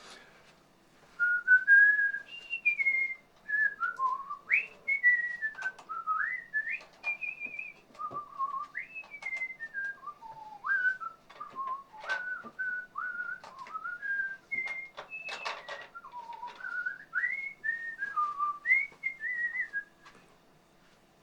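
A person whistling a tune: a single clear tone that steps and slides from note to note, starting about a second in and stopping near the end. A few faint clicks come in between.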